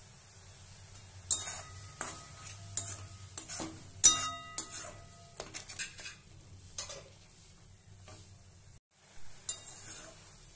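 A metal spatula stirring a thick vegetable masala in a metal kadai, scraping and clanking against the pan, over a faint sizzle of frying. Strokes start about a second in, and a sharp knock on the pan about four seconds in leaves a brief metallic ring.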